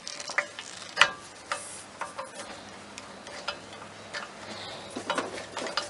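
Small metal lathe parts being handled and test-fitted: scattered sharp clicks and taps of metal on metal, a louder knock about a second in and a quick run of clicks near the end.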